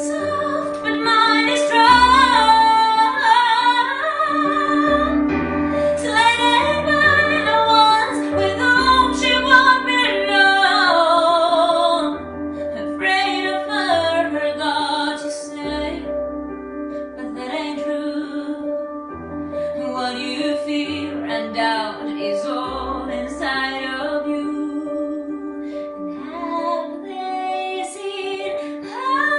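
A woman singing a slow ballad with wavering vibrato, accompanying herself on a Roland RD-700NX digital stage piano that plays held chords and low bass notes. The singing is loudest for about the first twelve seconds, then drops softer.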